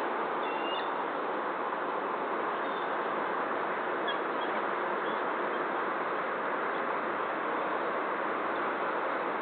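Steady outdoor background hiss with a few faint, short bird chirps scattered through it, the first about half a second in.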